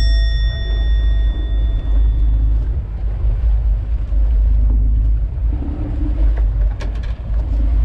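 Boat underway: a steady, loud low rumble of the motor mixed with wind buffeting the microphone. A ringing chime fades out during the first couple of seconds.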